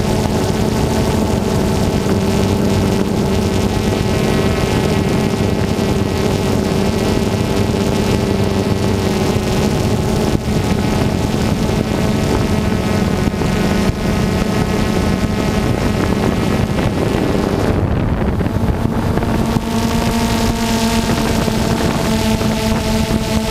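Camera drone's propellers running steadily, a hum of several even tones. About three-quarters through, the hiss briefly drops away and the pitch shifts slightly, as when the drone changes its flight.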